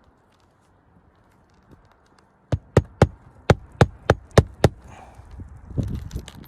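Hammer blows on roofing, about nine quick sharp strikes at roughly three a second, starting a little past halfway.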